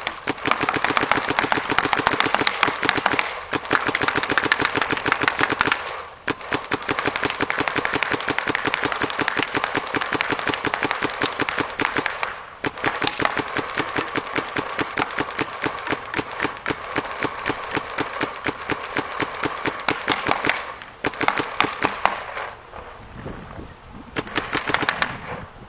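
A Planet Eclipse Gmek mechanical paintball marker firing rapidly in long strings of sharp shots, many a second, broken by a few brief pauses. The strings grow shorter near the end.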